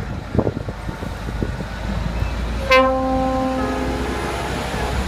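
MAN heavy-haul truck's diesel engine running low as it passes. About halfway through, an air horn sounds loudly: one note, then a second note at a different pitch.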